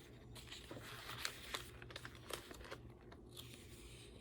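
Faint rustling of paper pages with a few light ticks and taps as the pages of a handmade junk journal are handled and turned.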